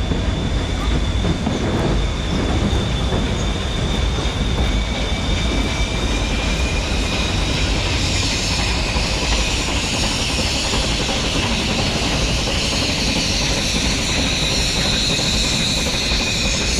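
Nilgiri Mountain Railway toy train running: a steady rumble of wheels on the rails with a thin, high-pitched wheel squeal that grows stronger about halfway through.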